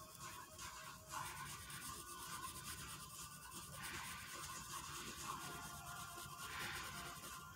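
Sharpie felt-tip marker rubbing and scratching on paper, in short bursts of strokes as it fills in an area with black ink.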